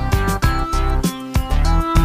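Background music with a steady beat and sustained plucked-guitar notes.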